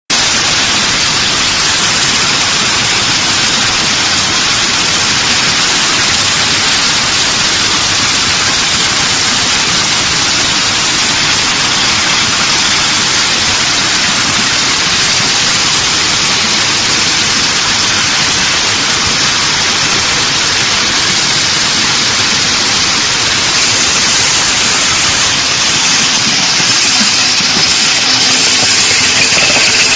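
Steady, loud, even hiss of machinery running on a bottle-cap laser marking line, with a faint hum joining in near the end.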